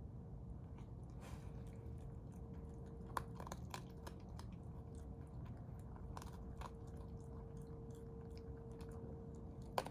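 Raccoon chewing and crunching food, with irregular crisp crunches and clicks every second or so.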